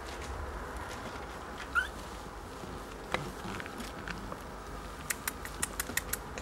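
Light scratching and patter of small kittens clambering over their mother and a blanket, with a quick run of sharp little clicks near the end. One brief high squeak that rises in pitch about two seconds in.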